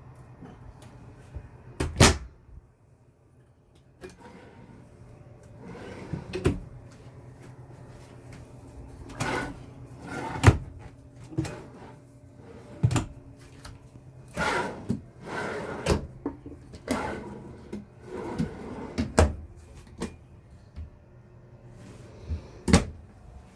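Cupboard doors and drawers in a small camper trailer being opened and shut: a string of knocks and clunks at irregular intervals, over a faint low steady hum.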